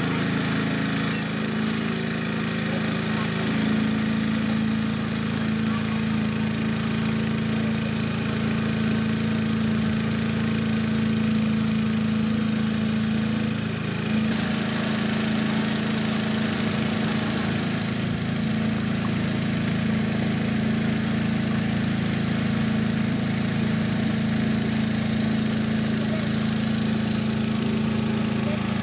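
Small river boat's engine running at a steady drone. A brief click about a second in.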